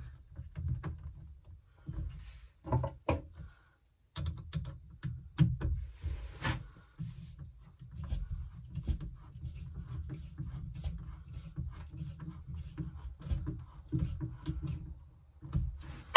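A flexible hose being worked onto the spigot of a Whale Gulper shower pump, then a screwdriver tightening a Jubilee hose clip: scattered small clicks, taps and rubbing over low handling noise.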